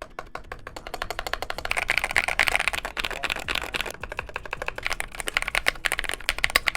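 Fast, continuous typing on a modded GK61X 60% mechanical keyboard, a dense run of key presses with a deep, thocky sound, picking up a little about two seconds in.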